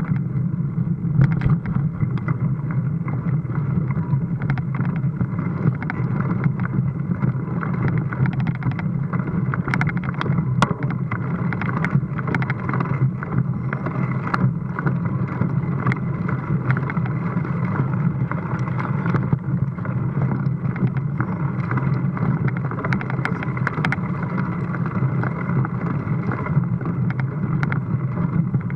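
Mountain bike climbing over cobbled and flagstone streets, heard from a camera mounted on the bike: a steady low rumble with wind on the microphone and many scattered clicks and knocks as the bike jolts over the stones.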